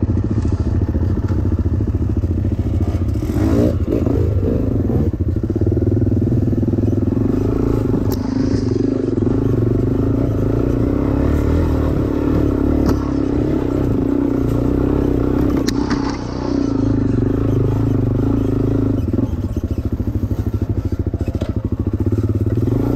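Dirt bike engine running as the bike is ridden, its pitch shifting with the throttle, with a brief drop in engine level about sixteen seconds in and a few sharp clicks.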